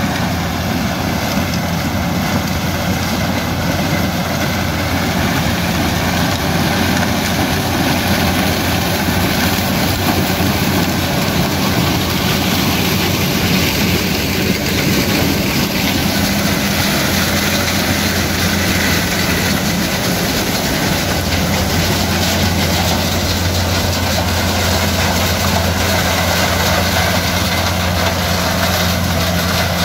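Heavy diesel engine of farm harvesting machinery running steadily under load: an even, continuous low hum that grows a little stronger about two-thirds of the way through.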